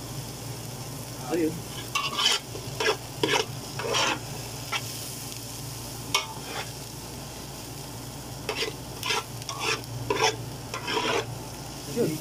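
A metal slotted spatula scraping and stirring diced onion, garlic and chili frying in oil in an aluminium pot: bursts of quick scrapes against the pot, pausing about five seconds in and again around seven to eight seconds in, over a steady sizzle.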